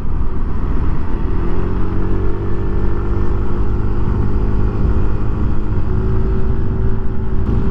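Motorcycle engine running under way, heard through a lavalier mic inside the rider's helmet, with heavy wind rumble over it. The engine note climbs a little about two seconds in, then holds steady.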